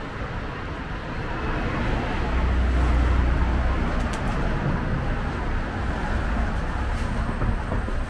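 Street traffic going by: a steady wash of vehicle noise, with a heavy low rumble swelling about two seconds in as a large vehicle passes, and a couple of short clicks later on.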